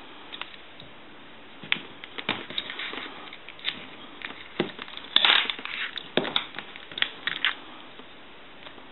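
Scattered clicks, knocks and short scrapes from handling the security cable of a Northern Electric 3-slot payphone's handset, as it is aligned to get the key back in; busiest in the middle.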